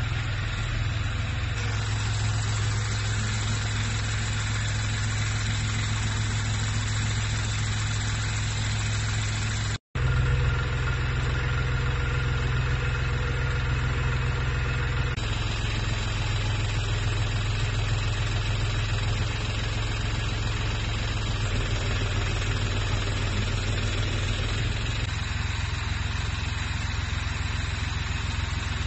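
Mini excavator engine running steadily at idle, its low hum shifting slightly in pitch a few times. About ten seconds in the sound breaks off for a moment and then comes back.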